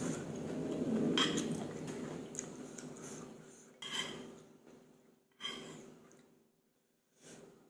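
Close-up eating sounds of noodle soup: chewing at first, fading away, then a metal spoon and chopsticks clinking against a ceramic bowl three times, each a sharp knock with a short ring.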